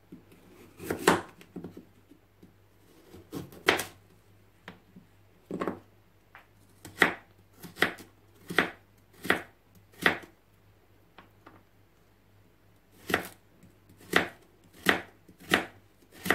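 Kitchen knife chopping a carrot on a wooden cutting board: single sharp knocks of the blade striking the board, spaced out in two runs with a pause of a couple of seconds between them.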